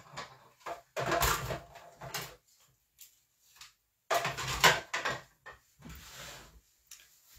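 Die-cutting machine and its stacked plastic cutting plates being cranked and handled. Irregular clatter and rustle come in two main bursts, about one second in and about four seconds in, with fainter handling between.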